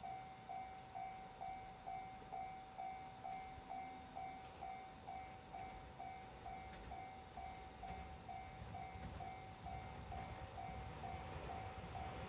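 Japanese level-crossing warning bell ringing steadily, about two electronic dings a second. Near the end the low rumble of an approaching train rises underneath.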